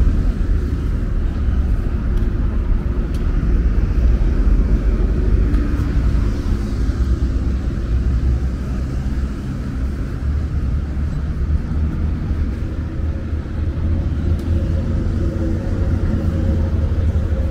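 Road traffic on a city street: passing cars making a steady low rumble.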